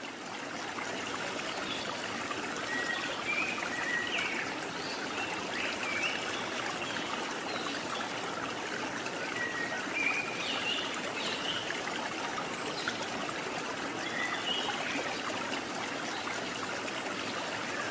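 Steady sound of flowing water, like a stream, with short high chirps here and there.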